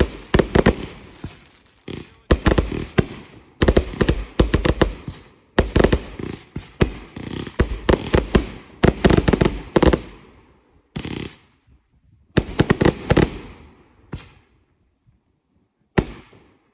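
Fireworks exploding in rapid volleys of sharp bangs and crackle, clustered every second or two. The volleys thin out near the end to a single last bang.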